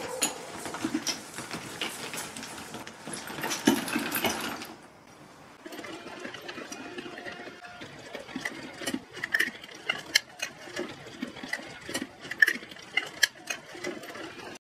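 Small 12 V DC motors of a home-built robot luggage trolley whirring as it drives, louder for the first few seconds, then quieter with frequent sharp clicks.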